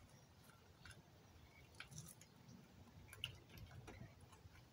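Near silence with faint, scattered small clicks and rustles of hands handling an opened plastic winch control box and its wires.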